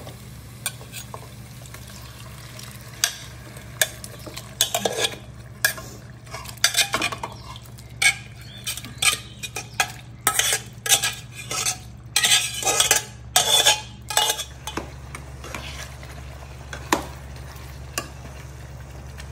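Steel ladle scraping and clinking against a steel pot and a non-stick pan as cooked mutton and potatoes are spooned into hot masala, with a light sizzle and stirring. The clinks come thick and fast in the middle and thin out near the end, over a steady low hum.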